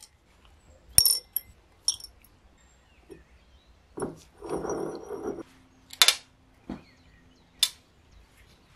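Small steel screw and coil spring clinking sharply against a glass jar and a plastic tray, a handful of separate clinks, with a short spell of liquid swishing in the jar about halfway through.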